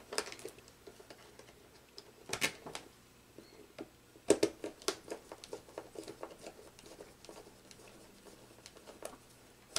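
Faint clicks and taps of hands working control wires into a DIN-rail terminal block, with small clusters of clicks about two and a half and four and a half seconds in, and lighter scattered ticks after.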